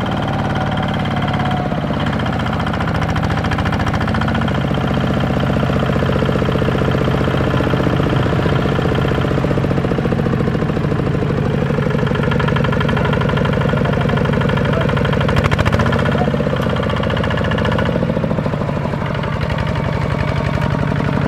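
Single-cylinder diesel engine of a Kubota walking tractor running hard under load as it hauls a cart of rice sacks, its rapid firing steady with small shifts in pitch.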